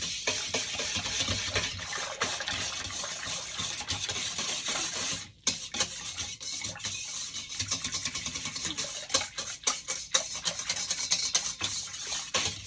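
A wire whisk stirring brown sugar into water in a stainless steel bowl: steady swishing of water, with the tines ticking and scraping against the metal. There is a brief pause about five seconds in. The sugar is being dissolved completely before the dry ingredients go in.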